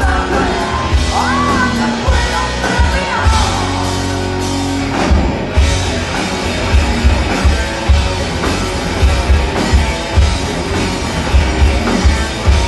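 Live hard rock band playing loud in a club, heard from among the crowd: electric guitars, bass and drum kit. High notes bend up and down over the first few seconds, then a driving beat of heavy kick-drum hits takes over from about five seconds in.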